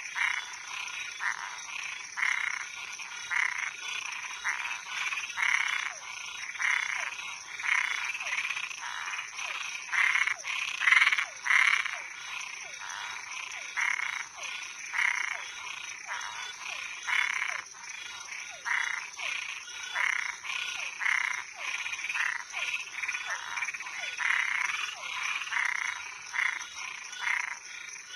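Night chorus of frogs and tree frogs calling: short, harsh calls repeat several times a second from many animals at once, overlapping and varying in loudness, over a steady high-pitched drone.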